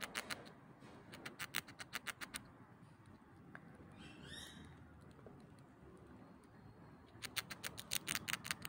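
A squirrel gnawing at a hard lollipop: quick runs of sharp clicks as its teeth scrape the candy, for about two seconds at the start and again near the end. A short rising chirp about halfway through.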